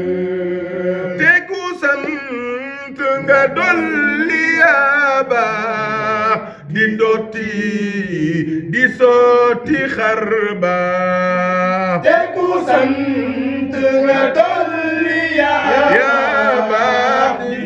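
Men chanting a zikr, a lead voice singing long melismatic lines with wavering pitch over the group's lower voices.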